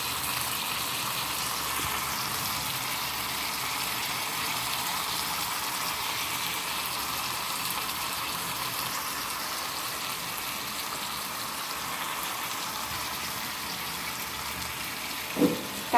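Balado sauce of blended chilies, shallots, garlic and tomato, with a little coconut milk, sizzling steadily in a pan over fried tuna pieces.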